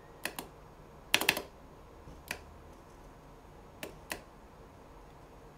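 Computer mouse clicking: a few sharp clicks, mostly in quick pairs like double-clicks, with a louder cluster about a second in and a last pair about four seconds in.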